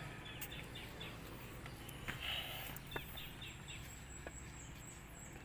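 Quiet outdoor ambience with faint, scattered bird chirps.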